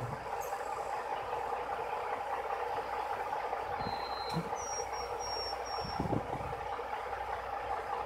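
Steady engine hum of idling vehicles and construction machinery. About four seconds in, a short high whistled note is followed by four quick higher notes.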